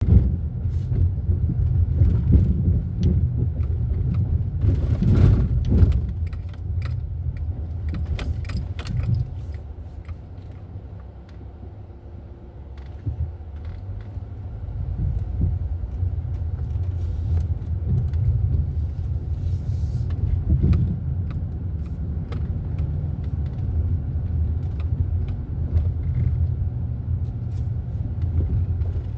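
Car driving: a steady low road and engine rumble with scattered clicks and rattles, easing off for a few seconds in the middle before building again.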